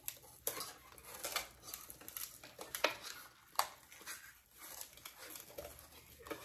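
Paper scissors cutting through mat board: a run of irregular, sharp snips.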